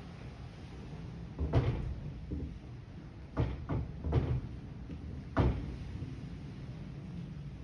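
A door knocking and bumping in five sharp wooden knocks spread over about four seconds, the last one the loudest.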